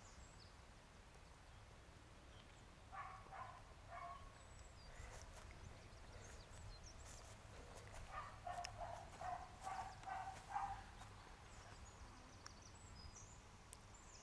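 A dog barking faintly in the distance: a few barks about three seconds in, then a quicker run of barks about eight to eleven seconds in. Birds chirp faintly at the start and near the end.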